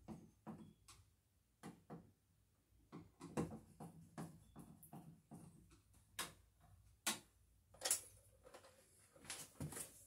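Faint, irregular clicks and scrapes of a screwdriver turning the screws of a single pole light switch as it is fastened into the wall box, with a few louder knocks.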